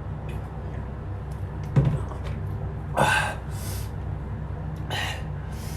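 A man breathing hard in sharp gasps, pained from the burn of a superhot chili pepper he has just eaten. There is a brief low thud a little under two seconds in, over a steady low hum.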